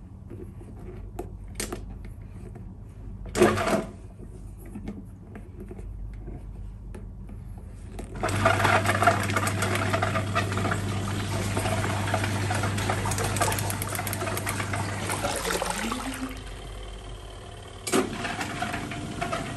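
Small portable folding washing machine running its wash cycle: the motor hums steadily while the water churns for about seven seconds in the middle, then stops. A sharp knock comes a few seconds before it starts, and another near the end.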